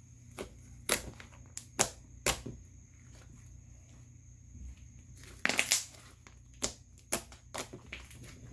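Thick, buttery slime with sand mixed in, being pressed and squished by hand for ASMR, giving scattered sharp clicks and pops with a longer crackling run about five and a half seconds in.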